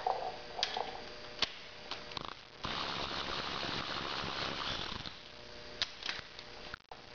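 Cordless electric ratchet running steadily for about three seconds as it spins off a cam bearing cap nut, after a few sharp metallic clicks as the socket goes onto the nut.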